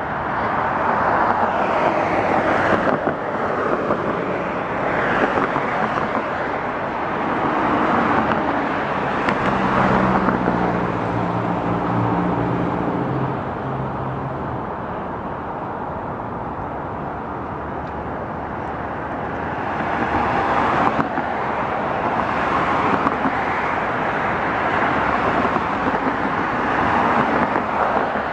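Road traffic: cars passing one after another on a wide multi-lane road, each a rush of tyres and engine that swells and fades, with a quieter lull in the middle. For a few seconds near the middle a low engine hum with a steady pitch sits under the traffic noise.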